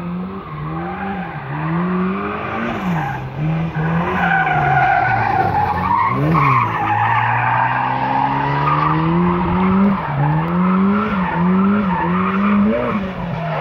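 Volvo 244 Turbo drifting: the engine revs up and drops back over and over, with a sharp lift and re-rev about six seconds in, while the rear tyres spin and skid with a rough squeal.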